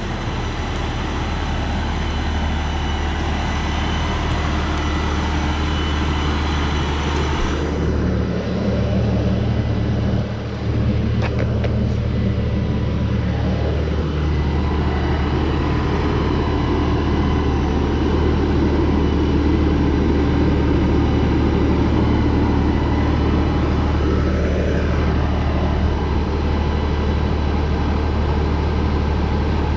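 A 42 hp LS compact tractor's diesel engine running steadily as the tractor drives across the grass.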